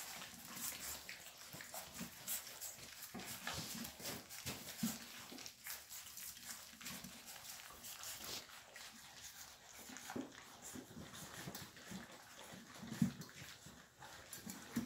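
Setter puppies eating a wet weaning meal from a metal feeding pan: busy lapping and chewing with many small clicks and taps against the metal, and a few louder knocks.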